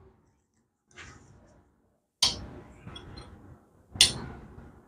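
Small metal parts clinking and knocking as they are handled and set down on a workbench: three separate sharp knocks, each fading quickly.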